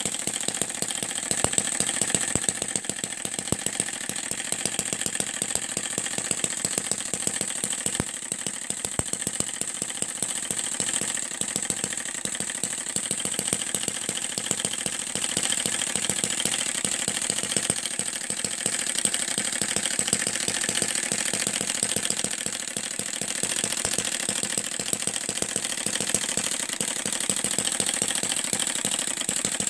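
Miniature four-stroke internal combustion engine running steadily, a rapid, even train of firing beats and light mechanical clatter.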